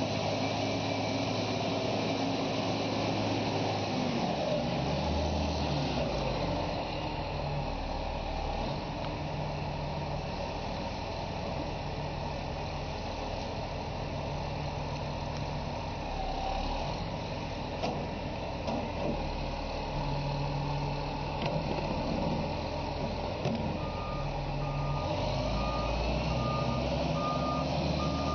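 Heavy diesel machinery running, its engine note shifting up and down several times, with a reversing alarm beeping in evenly spaced pulses, plainest near the end.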